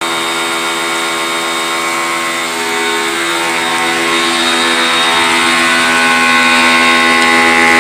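Black & Decker PW1470TD electric pressure washer running steadily while spraying. Its motor and water pump give a loud, even, many-pitched hum over a hiss of spray, growing slightly louder in the last few seconds.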